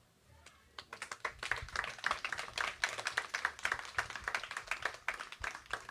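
Audience applauding after a poem: a dense patter of handclaps starts about a second in and begins to thin out near the end.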